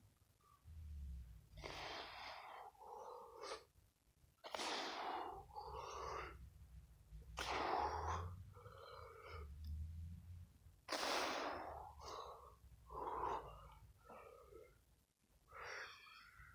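A man's hard, noisy exhalations, one about every three seconds and each followed by a quicker breath or two: exertion breathing as he swings a heavy wooden stick in a chopping motion.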